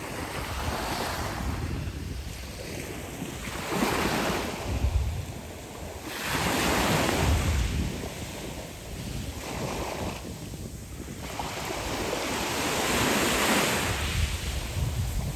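Small sea waves washing up onto a fine pebble beach and drawing back, the rush of water over the shingle swelling and fading every few seconds.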